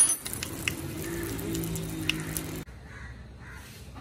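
Hot oil sizzling and crackling in a small kadai as slit green chillies are added for a tempering. About two and a half seconds in, the sound drops abruptly to a fainter sizzle.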